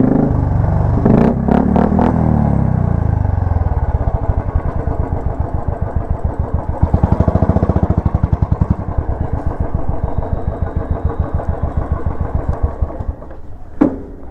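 Royal Enfield Classic 350's single-cylinder engine running through an aftermarket short Royal Enfield exhaust. It is revved and falls back with a few sharp pops, then settles into a loud, steady, evenly pulsed idle thump. A single sharp click comes near the end as the sound drops away.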